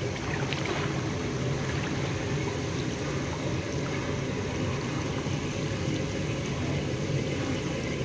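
Pool water churning and bubbling in a steady rush.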